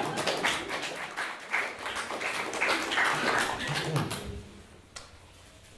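A small audience clapping, a dense patter of many hands that dies away about four seconds in.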